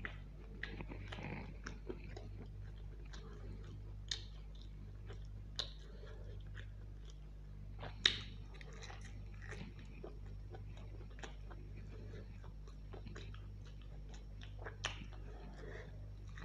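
Close-miked chewing and biting of mutton curry eaten by hand, with many short wet clicks. A few sharper clicks stand out, the loudest about eight seconds in.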